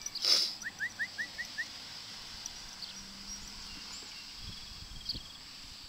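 A small bird chirping: a quick run of about six short rising notes, about five a second, with a few fainter high chirps later, over a steady faint high hiss. A brief loud noisy burst comes just before the chirps.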